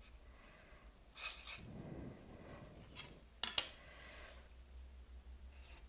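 Quiet desk-drawing sounds: a felt-tip marker scratching on paper and a plastic CD being shifted on the paper. There are a few short rustles and one sharp click about three and a half seconds in.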